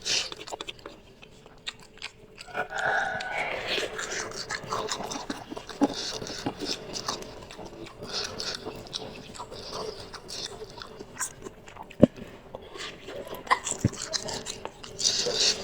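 Close-up eating of spicy instant noodles: chewing and wet mouth noises with scattered small clicks, and one sharp click about twelve seconds in.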